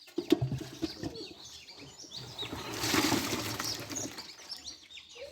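Water splashing and slapping in a shallow pond, a run of quick slaps followed by a longer rushing splash about three seconds in.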